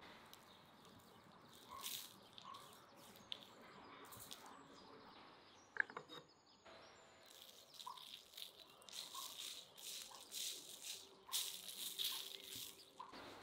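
Salt and ground spice sprinkled by hand onto a raw ox hoof and the paper under it. The grains land in a run of short hissing patters through the second half, with a single sharp click a little before. Faint bird chirps sound now and then behind.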